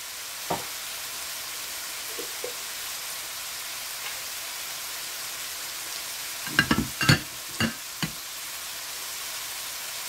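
Diced peppers, onion and squid rings sizzling in a frying pan, a steady hiss. A single sharp knock comes about half a second in, and a handful of sharp knocks about seven seconds in.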